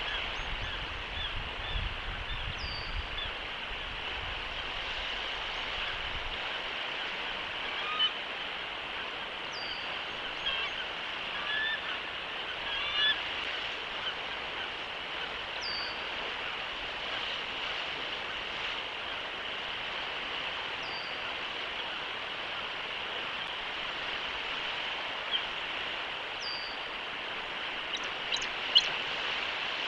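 Bald eagle calling: scattered high chirps about a third of the way in, then a quick burst of sharp, high piping notes near the end, the loudest sound here. Underneath runs a steady outdoor hiss, and a faint short falling note repeats every few seconds.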